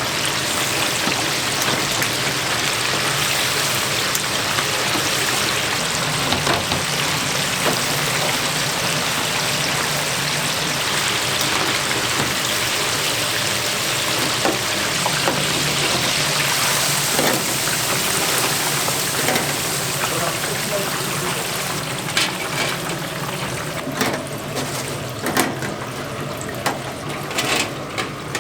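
Restaurant kitchen: a steady, loud hiss such as frying oil or running water, with sharp clicks and knocks of utensils in the last several seconds.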